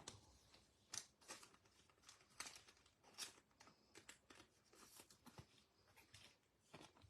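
Near silence with faint clicks and soft rustles of trading cards being handled, a dozen or so light taps scattered through it.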